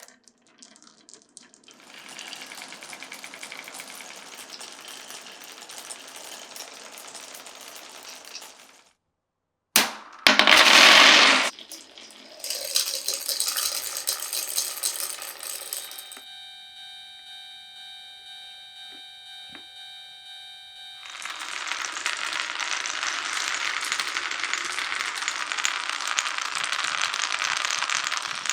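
Marbles rolling and clattering down a wooden marble-run course, heard as long stretches of dense rattling. About ten seconds in comes a short, very loud rushing burst, the loudest sound. From about sixteen to twenty-one seconds there is a steady ringing of several held tones.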